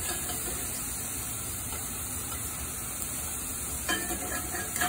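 Lion's mane mushroom steaks sizzling in a hot cast iron skillet, dry-frying with no oil: a steady hiss with a few light clicks near the end.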